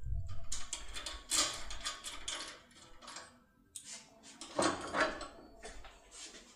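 Small metal clicks and scraping in irregular bursts from a Mul-T-Lock decoding tool being turned and worked in a lock cylinder, with a dull knock at the start.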